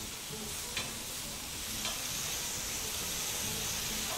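Zucchini slices sizzling on a hot ridged grill pan, a steady hiss, with a couple of light clicks of metal tongs about one and two seconds in as the slices are turned.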